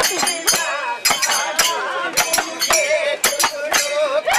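Folk dance music: sharp metallic clashes beating time about three times a second, with men's voices singing over them.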